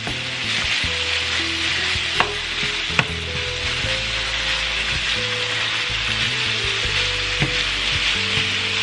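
Ground beef and Italian sausage sizzling steadily in a nonstick frying pan over medium-high heat while a slotted spatula breaks up and stirs the meat. The spatula clicks sharply against the pan twice, about two and three seconds in.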